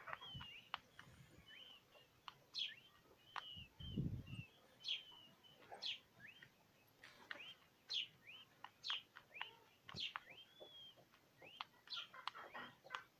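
Twenty-day-old peachicks peeping over and over, short high chirps that slur up and down, with scattered clicks and a brief low rumble about four seconds in.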